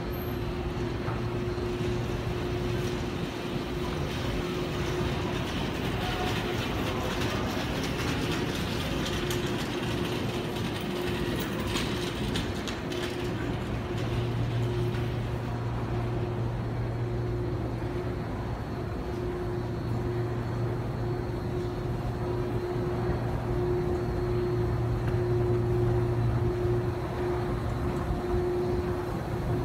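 Underground metro station ambience: a steady mechanical hum with a constant tone and a low drone over a continuous background rush. A brief patch of brighter clattering noise comes about twelve seconds in.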